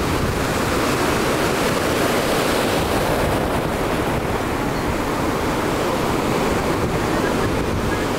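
Wind buffeting the microphone and sea water rushing past a jet ski under way: a loud, steady rush of noise.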